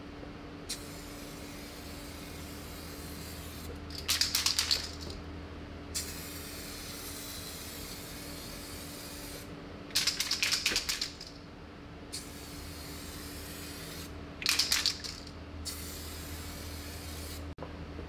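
Aerosol can of 2K clear coat spraying headlight lenses: a soft hiss that comes and goes, broken by three short, louder bursts about 4, 10 and 14 seconds in.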